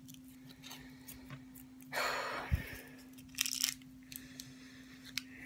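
Waxed paper wrapper of a White Rabbit milk candy rustling and crinkling in the hands as it is unwrapped, in a burst about two seconds in and a short crackle about a second later, over a steady low hum.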